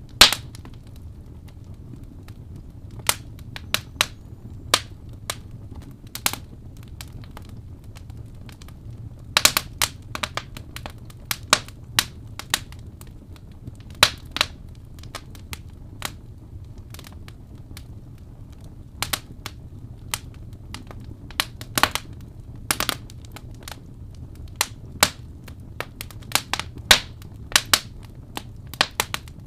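Wood fire burning, crackling with irregular sharp pops and snaps over a low steady rumble of the flames; a few pops are louder, one just at the start.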